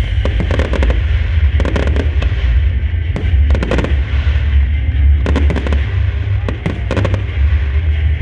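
Aerial show fireworks exploding in quick clusters of bangs and crackles, a new volley every second or so, over a steady deep rumble.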